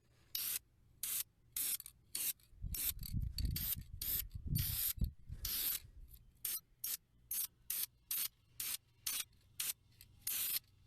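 Krylon spray paint can sprayed in many short bursts, about two hissing strokes a second, touching up the fin tips. A low rumble runs under the strokes for a couple of seconds partway through.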